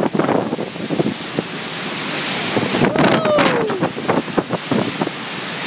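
Strong hurricane wind gusting across the microphone in a loud, even rush. About three seconds in there is a brief gliding vocal sound.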